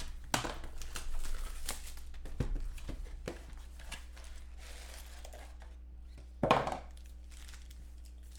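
Clear plastic shrink-wrap torn and crinkled off a box of trading-card packs, with the foil packs handled, in many short crackling rustles and one louder rustle about six and a half seconds in.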